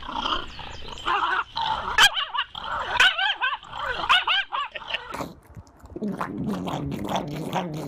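Pug whining and yipping, a run of high cries that rise and fall quickly, for about five seconds. Lower-pitched sounds follow in the last two seconds.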